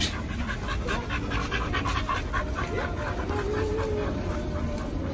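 Pit bull panting rapidly through an open mouth, about five quick breaths a second.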